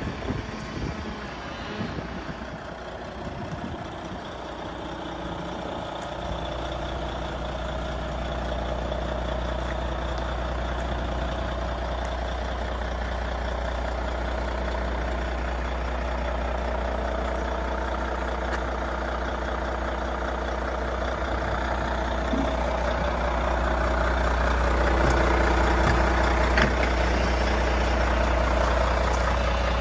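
Volvo FH460 truck's 13-litre straight-six diesel idling steadily, a deep even hum that becomes clear about six seconds in and grows louder toward the end.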